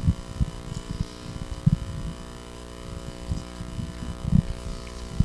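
Irregular low thumps and rumbles of a handheld microphone being handled, several a second, over a steady electrical hum from the sound system.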